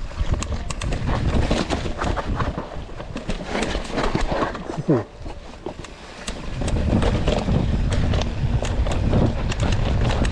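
Mountain bike rattling and clicking as it rides over a rough dirt trail, with a brief falling squeak about halfway through. Wind buffets the helmet-mounted action camera's microphone as a low rumble that grows louder about six seconds in.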